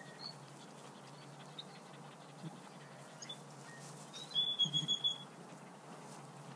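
Outdoor field sound of a sheep pasture: a small bird gives a few scattered chirps, then a brief burst of high chirps with a short steady whistle about four seconds in, over a faint steady low background.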